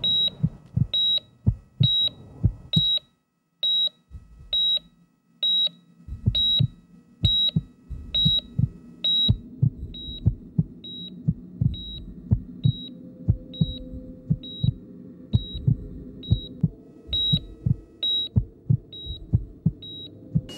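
Patient monitor beeping at a high pitch about twice a second, over low heartbeat thumps. The beeps grow softer about halfway through.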